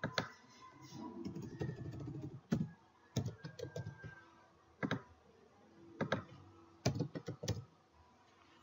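Computer keyboard typing in short bursts of keystrokes, with pauses between the bursts.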